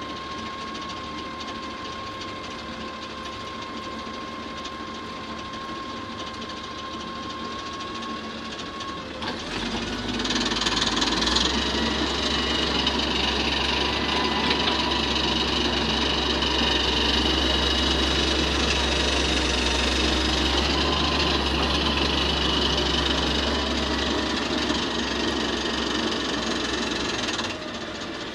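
Hitachi wheeled excavator's diesel engine running with a steady whine. About ten seconds in it rises to a louder, heavier run as the arm and bucket dig and lift soil, and it drops back near the end.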